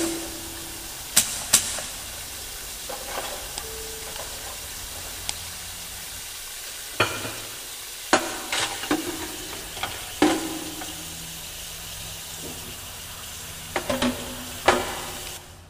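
Experimental field-recording piece: a steady crackling hiss broken by irregular sharp clicks and knocks, several of them followed by a brief low tone. A low steady hum comes in about two-thirds of the way through, and the hiss drops away just before the end.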